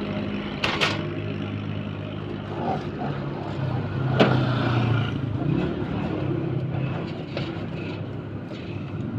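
An engine running steadily, with a sharp knock just under a second in and a louder knock about four seconds in.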